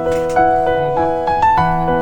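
Background piano music, notes struck in a steady, gentle repeating pattern.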